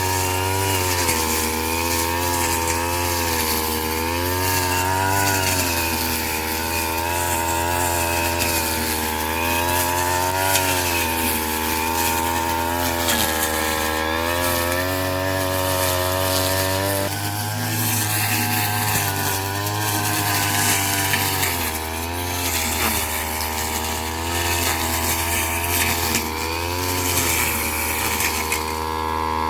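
Small petrol engine of a straw-cutting machine running at high speed while cutting rice straw, its pitch dipping and recovering every second or two as the load changes.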